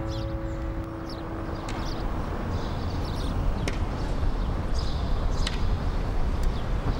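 Outdoor street ambience: a steady low rumble with light, sharp taps about every two seconds and a few short high chirps. Background music fades out during the first two seconds.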